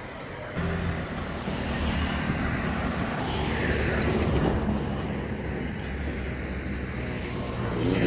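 Highway traffic: trucks and cars passing with a steady low engine rumble and tyre noise, one vehicle swelling past about four seconds in.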